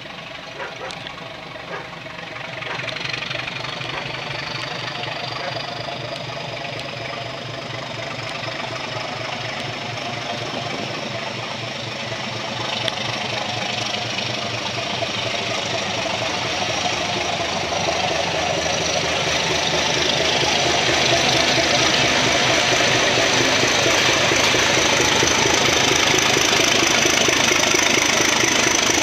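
ZSSK Cargo class 751 diesel locomotive's six-cylinder diesel engine pulsing under load as it hauls a freight train closer, growing steadily louder. A thin high whistle rises slowly in pitch over it.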